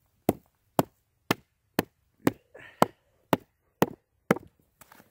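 A homemade wooden mallet striking the spine of a Schrade SCHF52 knife nine times, about two blows a second, batoning the blade into an aspen log to cut a notch.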